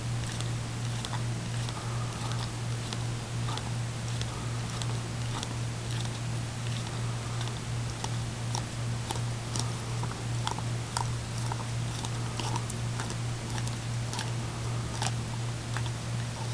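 Greyhound licking out a Frosty Paws dog ice cream cup: irregular wet tongue clicks and smacks, a few a second, over a steady low hum.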